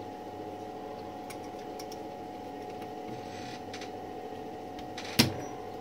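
Key lever of a 1912 Mercedes No. 3 typewriter being fitted: a few faint small ticks, then one sharp click about five seconds in as the lever snaps into its seat. A steady hum runs underneath.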